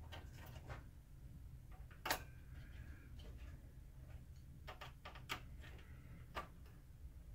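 Scattered small clicks and taps of a screwdriver and small parts against the opened projector's plastic and metal chassis: a sharper click about two seconds in and a quick run of clicks around five seconds, over a low steady hum.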